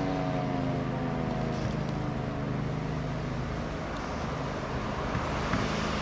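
Model 2 fire sirens winding down after a test, their falling pitch fading out over the first few seconds. Heard from inside a car, over a steady low hum from the car.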